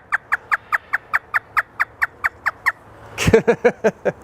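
African grey parrot imitating a hysterical laugh: a fast run of short, falling, high notes, about five a second, then a few louder, lower 'ha' notes near the end.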